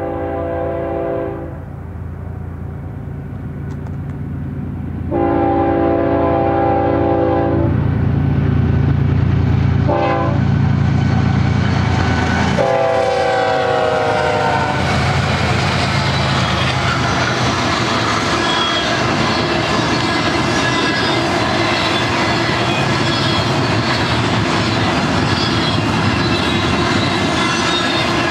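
GE diesel locomotive's air horn sounding the grade-crossing signal, over the low rumble of its diesel engine: long, long, short, long, the last blast dropping in pitch as the locomotive passes close by. Then the steady rumble and clatter of double-stack intermodal well cars rolling past on the rails.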